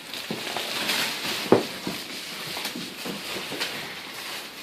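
Plastic wrapping of a rolled, vacuum-sealed mattress rustling and crackling as it is handled, with scattered soft knocks and one sharper knock about a second and a half in.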